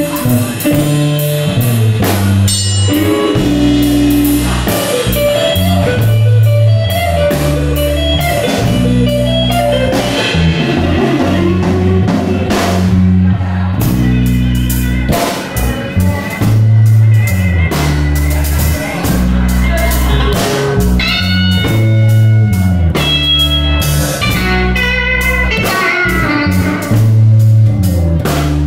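Live blues-rock band playing: a Stratocaster-style electric guitar through a Fender amp plays lead lines over a hollow-body electric bass and a Ludwig drum kit keeping a steady beat. The guitar's high, bending notes stand out in the second half.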